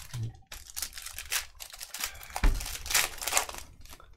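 Plastic trading-card pack wrappers crinkling and rustling as packs and cards are handled and opened, with a dull knock on the table about two and a half seconds in.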